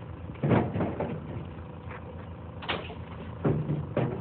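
Wooden fence slats knocking and clattering as they are handled, four times, the first about half a second in the loudest, over a steady low engine hum.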